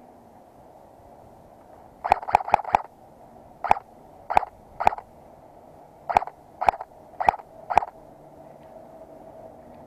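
Airsoft gun firing: a quick string of four shots, then seven single shots spaced about half a second apart, each a short sharp pop.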